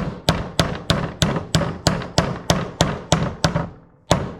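Steady hammer blows, about three a second, driving the spark plug tube seals out of a Toyota 4A-FE valve cover, each strike with a short ring. The strikes stop for a moment, then one last blow near the end.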